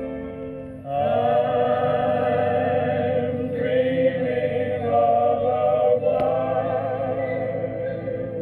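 Vocal music from a 45 rpm vinyl record playing on a 1960s HMV record player: voices singing with vibrato over accompaniment, with no treble above the midrange. The music swells louder about a second in.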